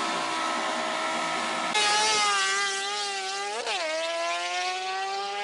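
Buzzy, engine-like drone from an outro sound effect. It holds one pitch, gets louder and higher about two seconds in, swoops up and back down briefly near the middle, then climbs slowly and sweeps up sharply at the end.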